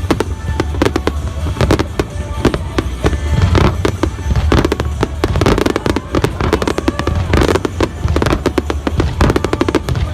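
Aerial fireworks going off in a dense, continuous barrage of bangs and crackling over a low rumble, with music playing underneath.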